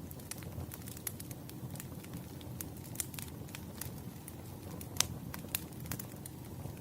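Fireplace crackling: irregular sharp pops and snaps over a steady low rumble of the fire, with one louder pop about five seconds in.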